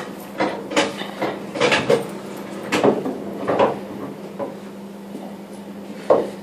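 Pool balls clicking and knocking on a pool table. A run of sharp knocks comes through the first four or five seconds, with one more near the end.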